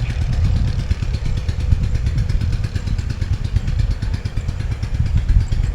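A small engine running steadily at an even speed, with a dense low rumble throughout.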